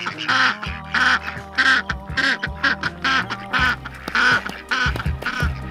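Domestic ducks quacking repeatedly in short, rasping calls, over background music with a steady bass line.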